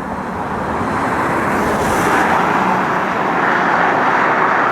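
Road traffic noise: a steady rush that swells slowly.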